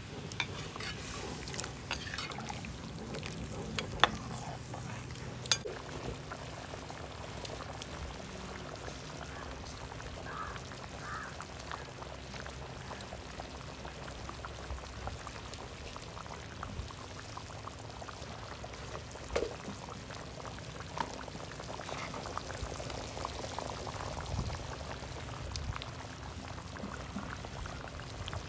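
Chicken soup bubbling at a boil in a black iron kadai, a steady bubbling hiss, with a few sharp knocks in the first six seconds and one more after about nineteen seconds.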